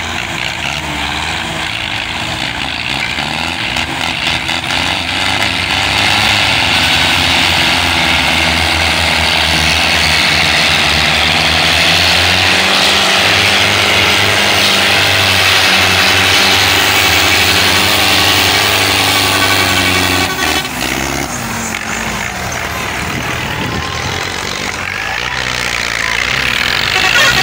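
Several diesel tractor engines, Belarus 510s among them, running hard together under heavy load as a chain of tractors tries to pull a stuck, loaded trolley. The deep engine drone drops away about twenty seconds in, and crowd voices are heard throughout.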